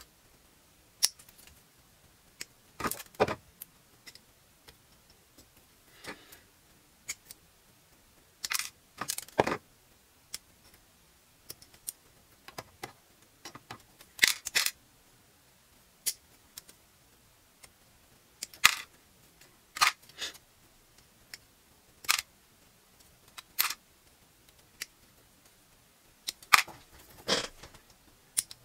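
Hobby side cutters snipping parts off a plastic model kit runner: sharp clicks at irregular spacing, about one every second or two, some in quick clusters of two or three, with light rattles of handled plastic between them.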